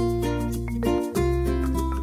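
Background music: upbeat plucked-string tune, ukulele or guitar, over a steady bass line.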